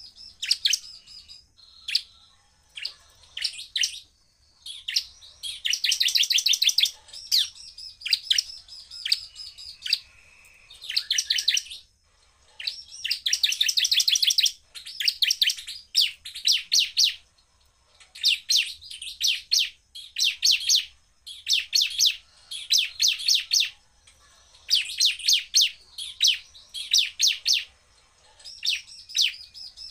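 Bar-winged prinia (ciblek) singing in full form: burst after burst of high, rapidly repeated chip notes, the fast-fire 'tembakan' song, each burst about a second long with short pauses between.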